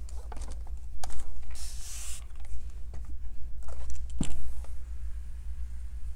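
A few light clicks and knocks, the sharpest about four seconds in, and a brief rustle about two seconds in, from fabric and tools being handled at a quilting table, over a steady low electrical hum.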